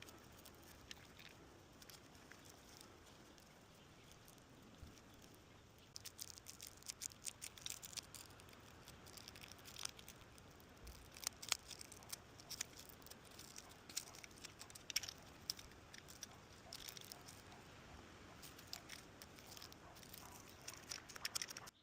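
Faint, irregular clicking, crinkling and scratching of hands working on a bicycle inner tube and its repair materials, starting about six seconds in.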